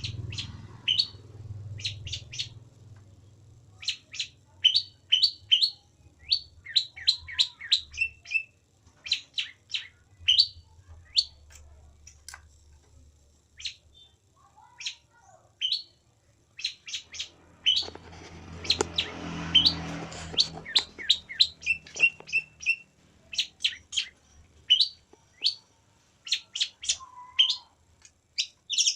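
Long-tailed shrike (pentet) calling: short, sharp, high chirps that drop in pitch, given in quick clusters of two to four and repeated over and over. A brief burst of noise sounds under the calls about two-thirds of the way through.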